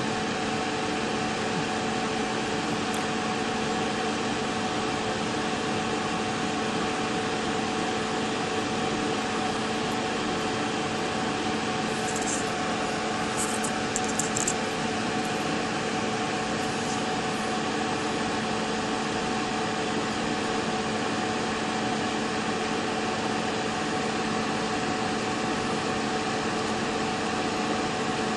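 Steady background hum and hiss with a few constant tones, broken by a few faint high ticks about halfway through.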